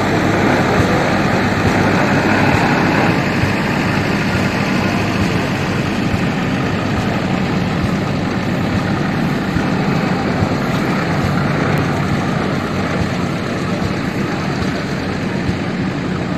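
Vintage Borgward tipper truck's engine running steadily at idle, a low, even engine note that fades slightly toward the end.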